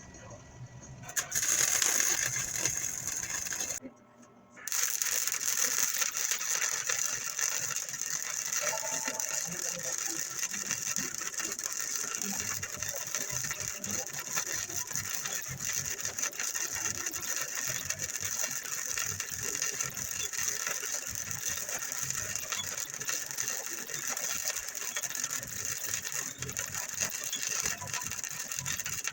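Welder arc welding steel, a continuous crackling sizzle. It starts about a second in, stops briefly around four seconds, then runs on steadily.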